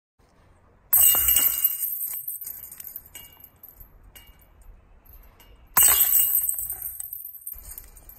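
Disc golf basket chains jingling and rattling as a disc strikes them, twice: a sudden clash about a second in and another near six seconds, each jingling away over a couple of seconds.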